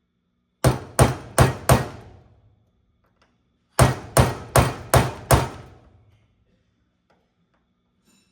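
Hammer striking a 3/32-inch pin punch to drive a pin out of a trap machine's throwing arm: four quick blows, a pause of about two seconds, then five more, each ringing briefly.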